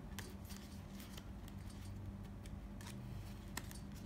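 Fingers handling a cardboard Apple Watch box as it is worked open: scattered light scratches, taps and clicks on the box.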